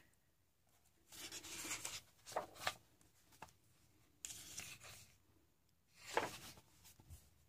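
A coloring book's heavy paper pages rustling and sliding under a hand as a page is turned, faint, in four short bursts, the last about six seconds in.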